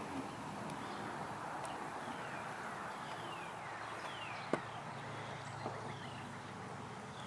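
Birds calling with short, repeated falling whistled notes over a steady outdoor hiss, with one sharp click about four and a half seconds in.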